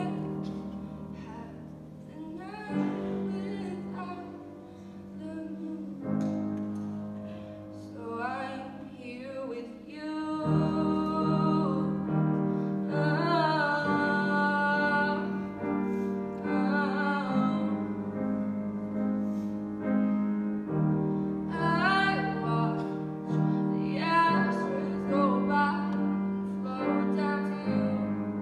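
A young woman singing while accompanying herself on a grand piano. The performance swells and grows louder about ten seconds in.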